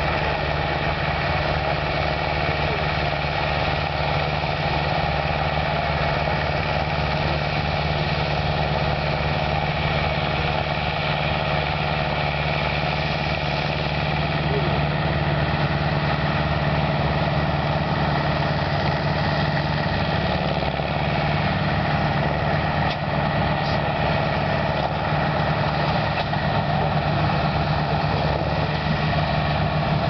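Tractor engine running steadily as it pulls a Lely round baler baling cut grass, with an even, unbroken drone throughout.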